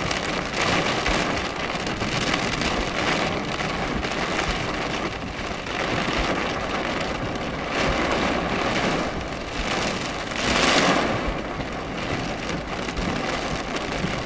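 Rain pelting on a car's windshield and roof in a thunderstorm, heard from inside the car, with a louder swell about ten seconds in.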